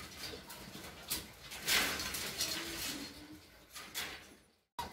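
Golden retriever puppies stirring in a wire cage: soft scuffling and a short rustle near the middle, with a couple of faint brief whimpers a little later.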